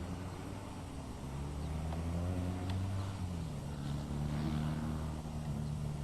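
Titan Tornado light aircraft's propeller engine droning in flight, its note dropping in pitch about three seconds in and then holding steady.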